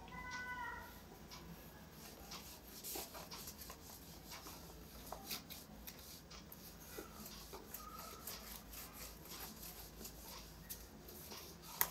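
Cloth wiping marker writing off a whiteboard: faint rubbing with scattered light taps and knocks against the board.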